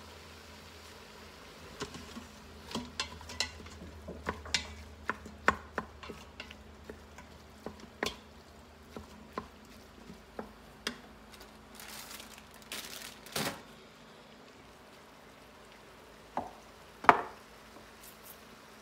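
Wooden spatula stirring and breaking up ground beef and onions in a stainless steel Instant Pot insert, with irregular taps and scrapes against the pot. A single louder knock comes near the end.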